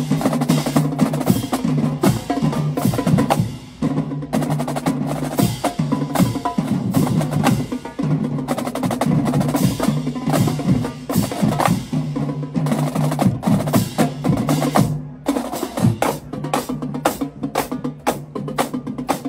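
Marching band drumline playing a cadence: marching snare drums and crash cymbals in a fast, driving rhythm, with a few brief breaks.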